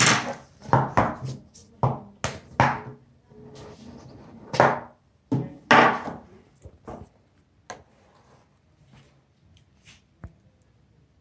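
A stiff cardboard gift box for a smartwatch being opened by hand: a run of quick scraping swishes and knocks as the lid is worked off and the box is set on the wooden table. These are followed by a few faint clicks as the watch is handled.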